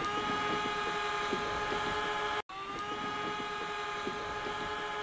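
Small quadcopter drone hovering overhead, its propellers giving a steady whine of several tones at once. The sound cuts out for an instant about halfway through, then carries on unchanged.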